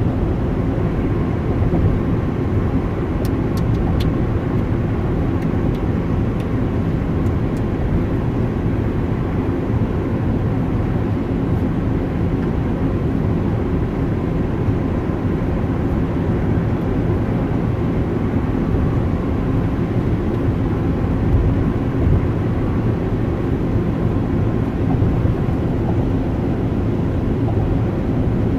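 Steady low road noise heard inside a car cruising on a freeway: tyre rumble and engine hum, even throughout.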